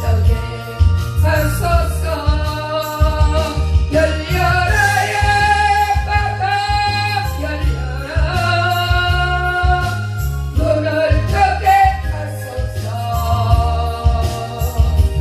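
A solo voice singing a Korean gospel song over an accompaniment with a heavy bass line and a steady beat, the singer holding long notes.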